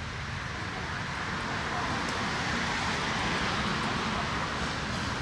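Steady outdoor background noise: a rushing hiss that swells slightly toward the middle and eases near the end, over a low rumble.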